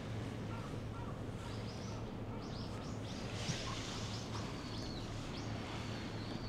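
Small birds chirping and calling, with short high sweeps and a thin held whistle, over a steady low hum.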